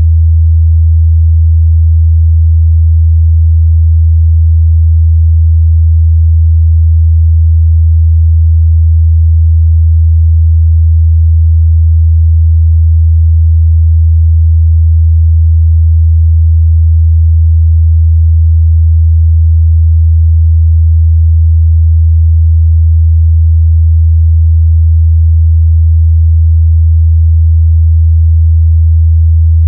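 A steady, loud 81 Hz sine-wave test tone: a single deep, unchanging hum, used to check a speaker's or headphone's bass response.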